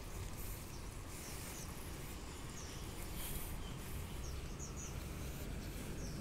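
Street ambience: a steady low rumble, with a few short, high bird chirps from about halfway through.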